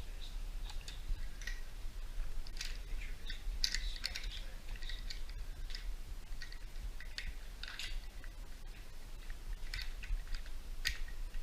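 Irregular small clicks and crunches, several a second with uneven spacing, over a steady low rumble.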